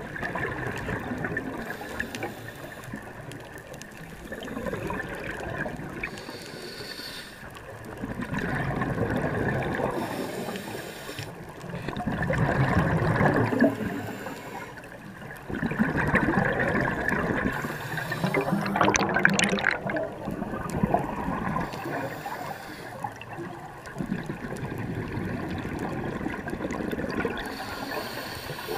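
Scuba breathing underwater: a diver's regulator and gurgling exhaled bubbles, rising and falling in slow surges every few seconds.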